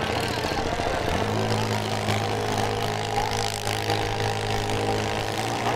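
A six-cylinder stock demolition derby car's engine running hard, settling about a second in to a steady, held pitch as the car pushes against another with its wheels spinning.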